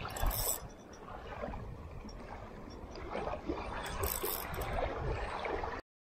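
Steady rushing noise of wind and lapping water while a spinning rod and reel are handled during a fish fight, with two brief brighter rustles. The sound cuts off abruptly to silence near the end.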